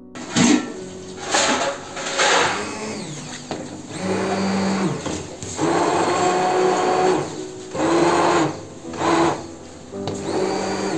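Electric hand blender motor running in repeated bursts and longer stretches, stopping and starting many times, as it purées boiled mango pieces into a smooth pulp.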